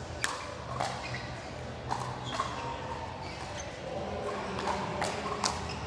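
Pickleball rally: sharp pops of paddles striking the ball and the ball bouncing on the court, a handful of knocks spaced irregularly, over steady crowd noise.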